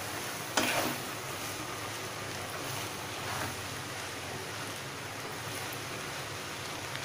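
Silicone spatula stirring bread cubes through a masala mixture in a nonstick pan: soft scraping and shuffling, with one sharper knock against the pan about half a second in, over a steady hiss.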